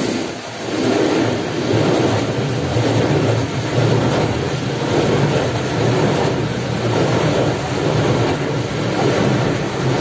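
Automatic car wash gantry's rotating brushes and water spray working over the car, heard from inside the cabin as a loud, steady swishing wash that swells and dips slightly.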